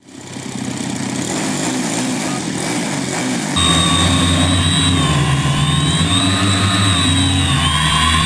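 DLE 55cc single-cylinder two-stroke gasoline engine of a large RC aerobatic plane running, turning a 23x8 wooden propeller. About three and a half seconds in, the sound abruptly gets louder and a wavering high whine comes in over it.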